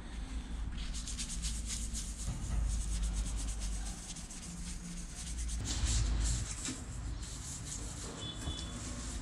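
A cloth soaked in acetone rubs over the painted cowling of an outboard motor in quick back-and-forth wiping strokes, with a low rumble underneath. The paint is being degreased before a touch-up.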